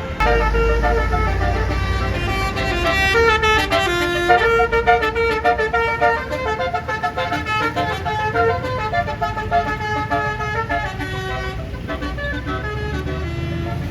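A bus's Basuri multi-tone air horn playing a telolet melody of quick, stepped notes, busiest in the first half and fading out a few seconds before the end. A low engine rumble sits underneath, loudest in the first two seconds.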